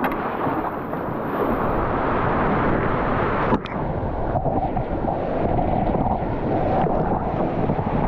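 Rushing whitewater, a steady loud rush of water with wind and water buffeting the action-camera microphone; it breaks off briefly about three and a half seconds in.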